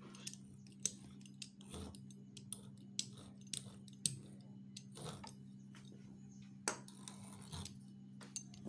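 Metal fluted pastry wheel rolling and scraping across a thin sheet of dough on a countertop, with scattered light clicks, over a steady low hum.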